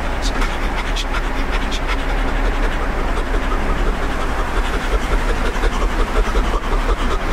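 A man's wordless vocalising, sound poetry made of breath and voice, over a steady low rumble.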